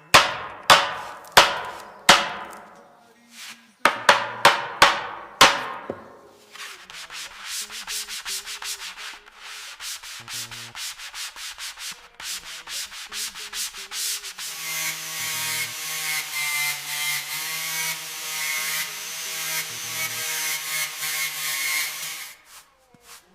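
Wood being worked by hand: a run of sharp knocks for the first six seconds or so, then even back-and-forth rubbing strokes on wood, about two a second, that grow louder about halfway through.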